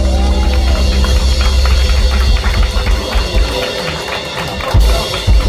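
Live rock band with the drum kit to the fore, playing a busy run of drum strokes. Two heavy accented hits come near the end, as the band is cued to stop.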